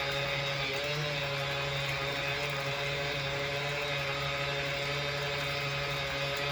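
Small portable washing machine running a wash cycle: its motor hums steadily as it agitates a sponge vacuum filter in the tub of water.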